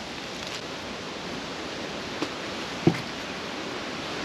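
Steady outdoor background hiss, slowly growing a little louder, with two faint clicks about two and three seconds in.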